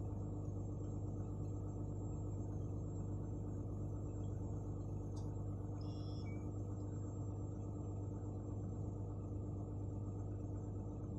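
Steady low mechanical hum with a constant low tone throughout, with a single click about five seconds in and a brief high chirp about a second later.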